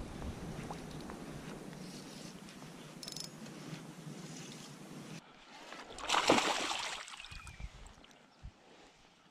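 Water sloshing and lapping around a float tube, then a louder splash of water about six seconds in.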